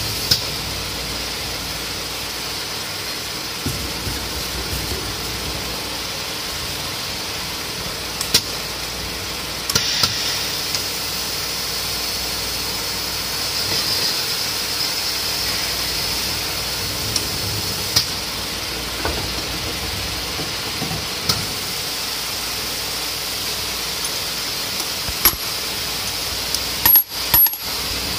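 Valve seat boring machine running on a diesel cylinder head with a steady high whine and hiss, briefly louder about halfway through. Scattered sharp metallic clinks of steel tool parts knocking against the head, several close together near the end.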